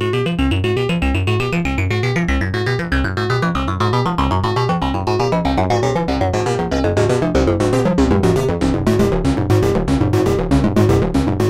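Buchla Music Easel synthesizer playing a fast, pulsing sequence of short pitched notes over a repeating low pattern. A sweeping tone runs through it, peaking about a second in and gliding slowly down over the next several seconds, while the pulses grow sharper toward the end.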